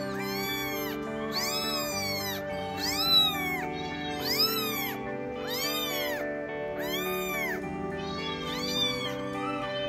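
Young kitten meowing again and again, roughly one high cry a second, each rising and then falling in pitch. These are distress cries at being picked up and held in a hand off the ground.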